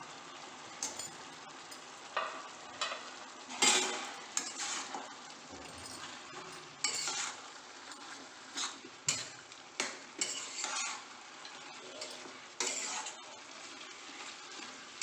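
A metal spoon stirring chicken, onion, tomato and spice powder in a metal pan on the stove, scraping and knocking against the pan in irregular strokes, over a steady sizzle of frying.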